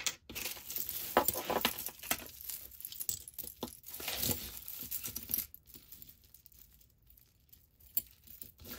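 Loose costume jewelry being handled: metal chains, earrings and beads clinking and jangling against each other. The clinks are dense for about the first five seconds, then thin out to a few scattered clicks.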